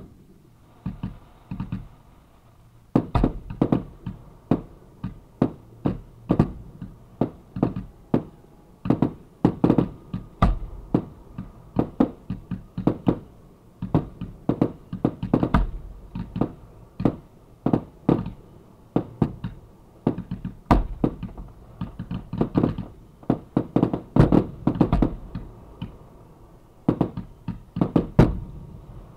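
Fireworks going off close to the launch site: a rapid, uneven string of sharp bangs and thumps, a few lighter pops at first, then two or three strong ones a second from about three seconds in.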